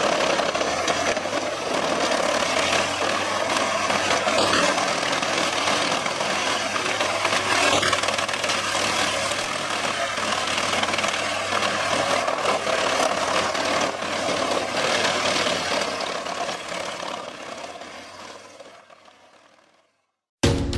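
Komptech Chippo 8010C wood chipper running, its spiked feed roller drawing in and shredding logs: a steady machine drone under a dense, irregular rattle and knocking of wood being chipped. The sound fades out near the end.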